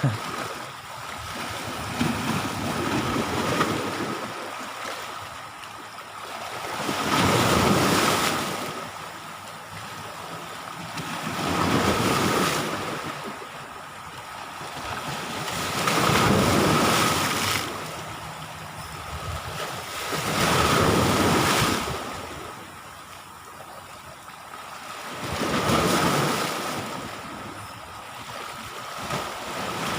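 Sea waves washing onto the shore in a steady rhythm, the surf swelling and fading about every four to five seconds, with a faint steady high tone underneath.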